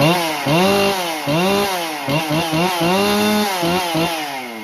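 Husqvarna 268 two-stroke chainsaw running for the first time after a complete rebuild, revved over and over so its pitch rises and falls with each throttle blip, then dropping back toward idle near the end.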